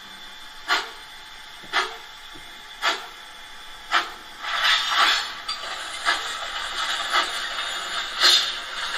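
Digital steam-locomotive sound from the ESU LokSound 5 decoder in a Gauge 1 model of a Prussian T3 tank engine, played through its onboard speaker. Exhaust chuffs come about once a second. About halfway through a steam hiss sets in and the chuffs quicken to about two a second, as the locomotive picks up speed.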